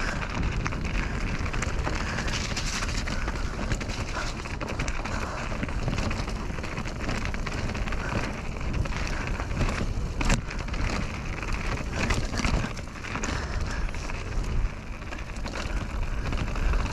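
Mountain bike descending a downhill trail: steady wind rush on the microphone mixed with tyre and frame rattle over rough ground, and one sharp knock about ten seconds in.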